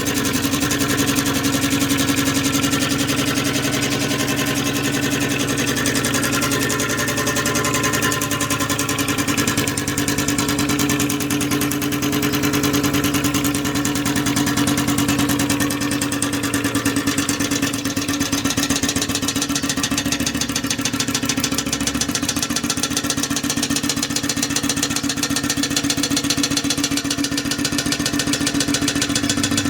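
Refrigerator compressor converted into a steam engine, running steadily with a fast, even chatter of strokes and a steady hum.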